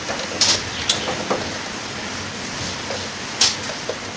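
Screwdriver and wire handling at an air conditioner's terminal block: a few small clicks and scrapes over a steady hiss.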